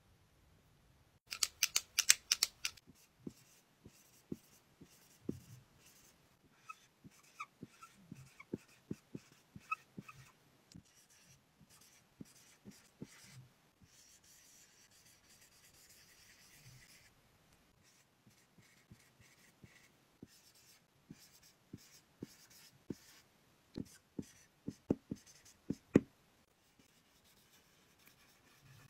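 Chisel-tip marker writing on a whiteboard: the tip scratches and squeaks in short strokes, with a quick cluster of sharp clicks about two seconds in and louder taps near the end.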